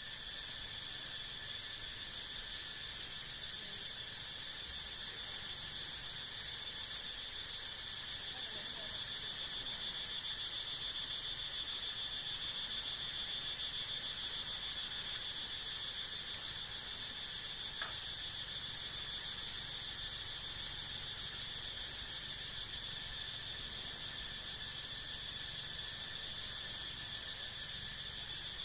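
Insect chorus: a steady, high-pitched, rapidly pulsing trill from many insects, with a fainter steady lower tone beneath. A single faint click about two-thirds of the way through.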